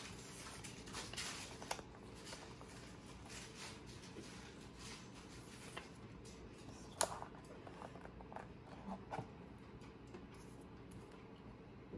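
Faint rustling and light taps of construction-paper cutouts being picked up and laid onto a paper plate on a wooden table, with a sharper tap about seven seconds in.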